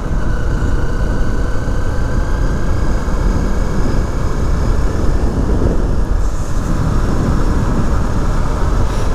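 Honda CRF300 dirt bike's single-cylinder engine running at a steady pace while riding, with heavy wind noise on the microphone.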